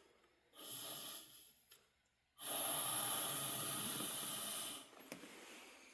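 Air blown hard through a small tube into a furnace's blocked condensate drain line: a short rush of air, then a louder, longer one of about two and a half seconds, with a strong hiss.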